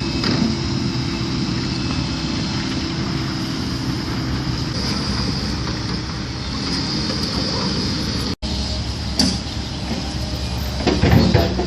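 Steady low engine rumble, broken by a brief dropout about eight seconds in and swelling a little near the end.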